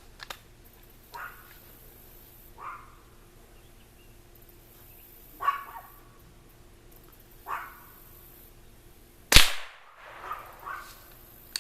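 A single sharp .22 LR gunshot about nine seconds in, with a short echo after it. A dog barks several times, more quietly, before and after the shot.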